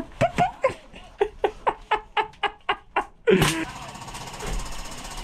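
A man laughing in a quick run of short breathy bursts for about three seconds, inside a bare metal van body. About three seconds in there is a louder short vocal sound, and then a steady low background noise.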